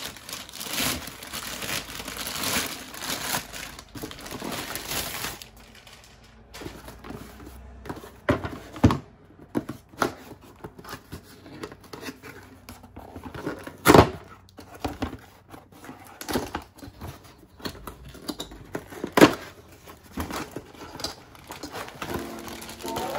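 Plastic poly mailer bag being peeled and torn open, crinkling densely for the first few seconds. Then a cardboard box is handled, with scattered rustles and light taps and two sharp knocks in the second half.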